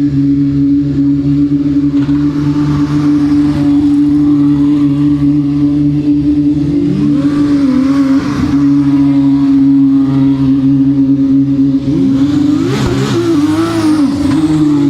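2018 Formula 2 cars' turbocharged V6 engines: a steady drone, with the revs rising and falling briefly about halfway through and again near the end.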